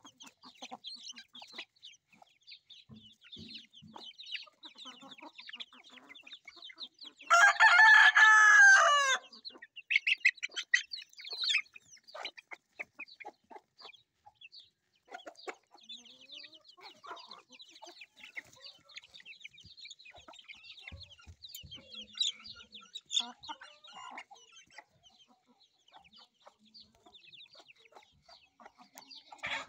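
Young chickens peeping and chirping continuously, with a rooster crowing once, loudly, for about two seconds some seven seconds in.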